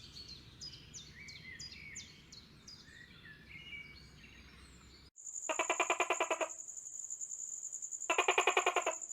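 Small birds chirping over a low background rumble. After a sudden cut, a steady high whine and two buzzy, trembling calls, each a bit over a second long, about three seconds apart.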